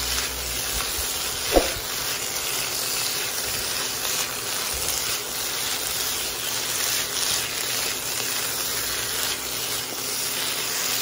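Chayote squash and onion sizzling in a hot nonstick wok while a silicone spatula turns them, with soft scraping strokes. A short sharp squeak about a second and a half in.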